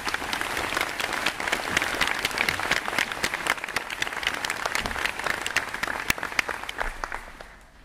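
Crowd applause: dense hand clapping that fades out about seven seconds in.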